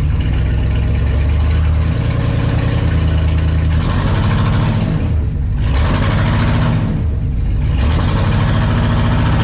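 LS-swapped V8 in a 1954 Chevy running in gear against the brake, the throttle opened up several times over a steady idle to load it. It is being loaded to bring out a misfire, and the owner finds cylinder 8 still popping under load.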